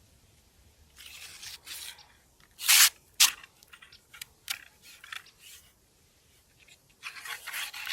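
Handling noise from rigging fishing tackle: rustling and rubbing, one loud short scrape a little under three seconds in, and several sharp clicks, with more rustling near the end.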